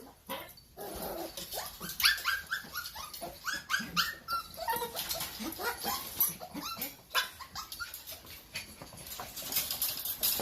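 Toy poodle puppy whining and yelping in many short high cries, several a second at times, with scattered light clicks.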